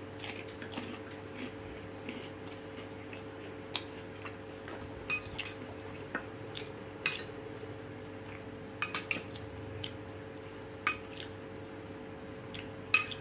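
Metal spoon clinking against a ceramic bowl and a plate as stew is scooped and served: scattered sharp clinks, several in quick succession about nine seconds in. A steady low hum runs underneath.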